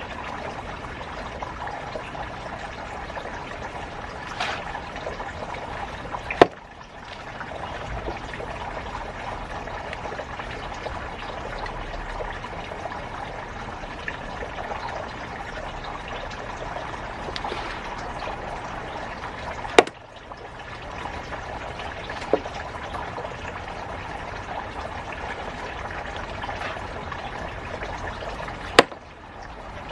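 Water running and trickling steadily, broken by a few sharp clicks.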